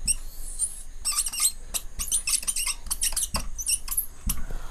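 Felt-tip marker squeaking and scratching across a whiteboard in a run of short, high strokes as a circle is drawn and a word is written.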